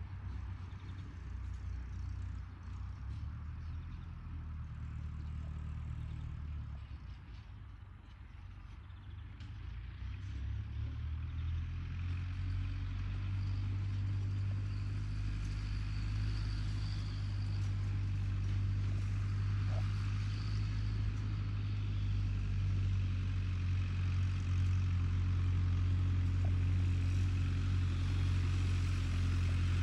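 International Harvester tractor engine running at a steady speed while pulling a hay tedder through a meadow, a low even hum. It fades slightly about a quarter of the way in, then grows louder and fuller from about a third of the way through as the tractor comes closer.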